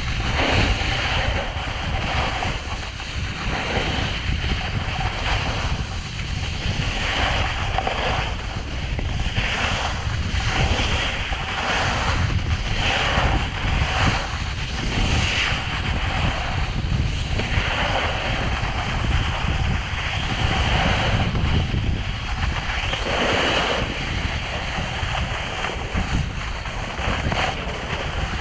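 Wind buffeting a helmet-mounted GoPro's microphone during a snowboard run, with the board's edges scraping over the snow in hissing surges every second or two as it carves turn after turn.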